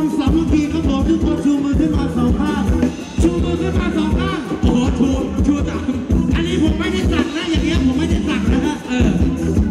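Live Thai ramwong band music with a steady beat and a singer's voice over it.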